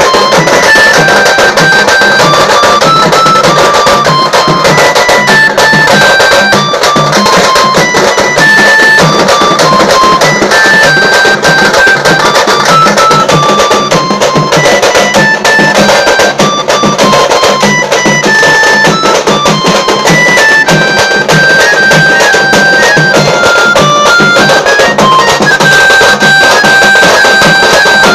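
Loud procession band music: a reedy wind instrument plays a stepping melody over fast, dense drumming on large stick-beaten drums.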